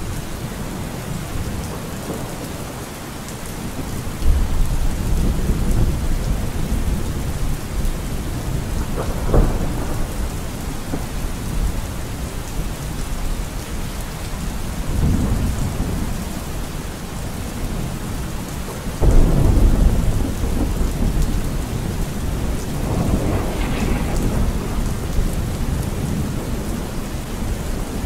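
Thunderstorm: steady rain with several rolls of thunder rumbling over it, the loudest a little past two-thirds of the way through.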